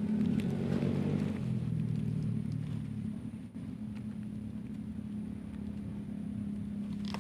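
An engine running with a low, steady hum; its note drops slightly about a second in, then holds steady.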